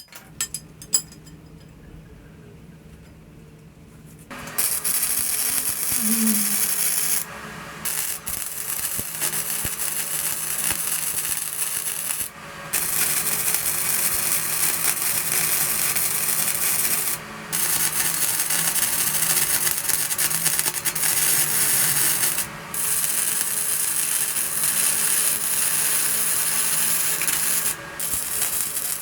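A few sharp clinks, then a steady, harsh abrasive grinding sound starts about four seconds in and runs on, stopping briefly for about half a second roughly every five seconds.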